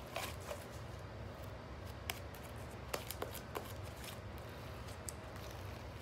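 Clear borax-activated glue slime being squeezed and stretched by hand, giving scattered small sharp clicks and pops.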